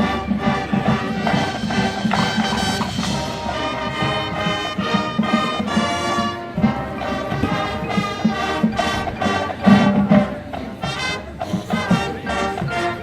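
High school marching band playing: brass and percussion together in sustained chords over a steady drum beat.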